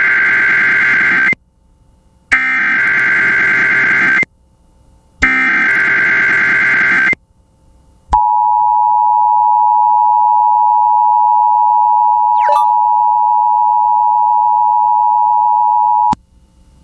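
Emergency Alert System alert: three bursts of SAME header data, a harsh warbling screech each about two seconds long with a second of silence between, the first already under way. Then the EAS two-tone attention signal (853 and 960 Hz together), a steady loud dual tone held about eight seconds before cutting off suddenly.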